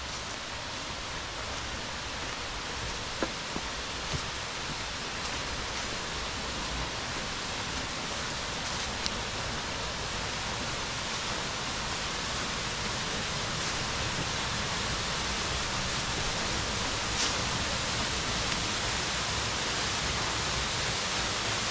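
Waterfall: a steady rush of falling water that slowly grows louder, with a couple of faint taps about three and four seconds in.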